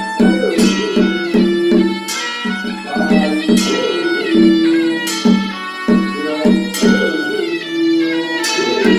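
Traditional Chinese instrumental ritual music: a melody that moves between runs of short repeated notes and longer held notes.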